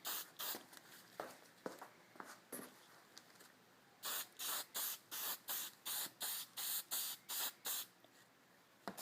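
Aerosol can of Krylon Crystal Clear clear coat spraying in short hissing bursts, about three a second, laying a light coat on a turn signal lens. The bursts stop for a few seconds, with a few faint clicks, then a longer run of about a dozen bursts follows, and a single click comes near the end.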